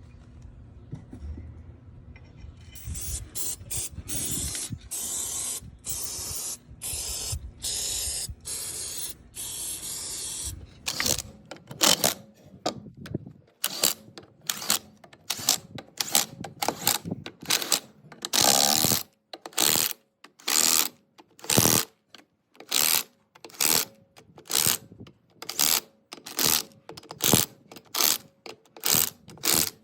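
A pulsing hiss for about eight seconds, then regular short ratcheting strokes, a little over one a second, typical of a hand ratchet wrench working wheel lug nuts.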